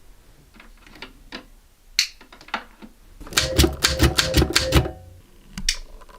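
Typewriter keys striking: a few scattered keystrokes, then a quick run of about ten strikes in the middle, and a couple more near the end.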